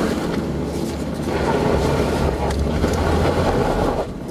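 Jeep Wrangler's 3.6-litre V6 running under load as it crawls over rock, a steady low rumble, with wind buffeting the hood-mounted microphone.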